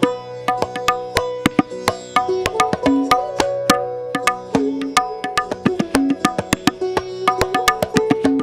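Tabla playing a rela, a fast drum-roll composition of rapid, closely packed strokes, over a lehra melody loop in Raga Bhimpalasi set to slow-tempo Teentaal.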